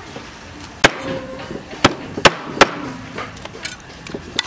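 A meat cleaver chopping through a raw whole chicken and striking a wooden cutting board, splitting the bird in two. There are four hard chops in the first three seconds, then a few lighter chops.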